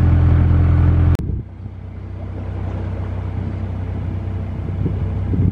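Narrowboat's diesel engine running steadily under way, a low hum heard from on board. About a second in it breaks off sharply and a quieter engine hum takes over, slowly growing louder.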